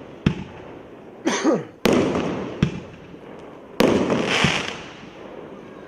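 A 25-shot, 1.1-inch firework cake firing in sequence: sharp thumps of shells launching from the tubes, and loud aerial bursts about every two seconds, each trailing off in a crackle.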